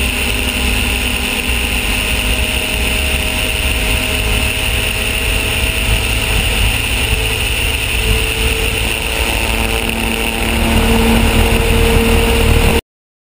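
Turbocharged Mazda two-rotor rotary engine and propeller running in flight, a loud steady drone mixed with wind rush over the microphone. It grows a little louder about ten seconds in, then cuts off suddenly near the end.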